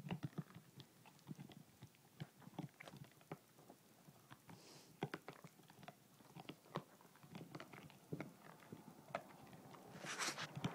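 Basset hound gnawing a chew bone held between his paws: faint, irregular clicks and crunches of teeth on bone, with a brief louder burst of noise near the end.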